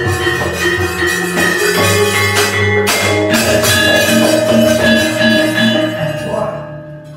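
Javanese gamelan music: ringing metallophones and gongs over a drum, with a sharp clash about three seconds in. The music dies away near the end.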